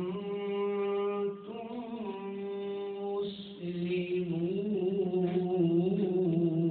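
A man's voice chanting Quranic recitation, drawing out long held notes. Two steady held notes open it, then a louder phrase that wavers up and down in ornamented turns.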